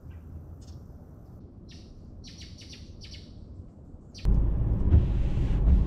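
Birds chirping a few short calls over a quiet low background. About four seconds in, a loud low rumble starts suddenly and becomes the loudest sound.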